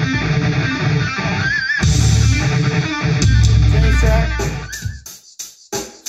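Rock music with electric guitar and bass playing through a Hisense Party Rocker One party speaker during a sound demo. Near the end the music breaks into a few short choppy hits with gaps between them.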